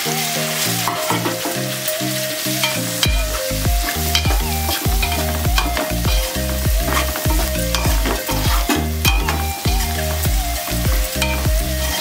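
A slotted metal spatula scraping and stirring vegetables and egg in a metal pot, with a frying sizzle, over background music whose deep bass line comes in about three seconds in.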